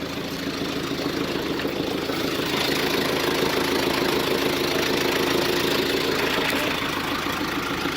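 Vehicle engine idling steadily while stopped.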